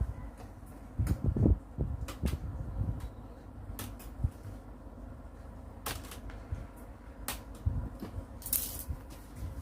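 Scattered sharp clicks and light knocks, with low handling thumps, from parts being handled inside an opened LED TV during disassembly.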